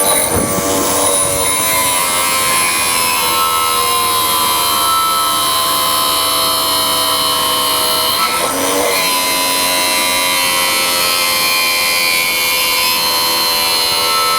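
End-mill sharpening machine's grinding wheel running with a steady high whine as it grinds an end mill, with a brief scraping change about eight seconds in.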